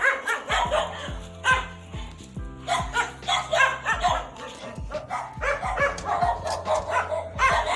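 Dogs barking again and again, with music playing in the background.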